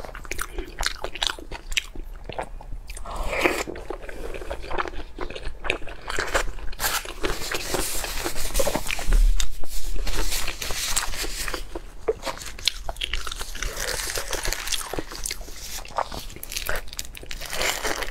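A person biting and chewing crunchy food close to the microphone, with many sharp crunches and crackles one after another.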